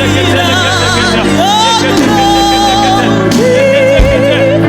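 Gospel worship song: a voice sings held, wavering notes with vibrato over sustained keyboard chords.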